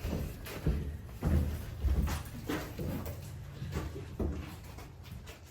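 Scattered knocks and thumps of boxes and objects being picked up and set down, several separate knocks over a low rumble.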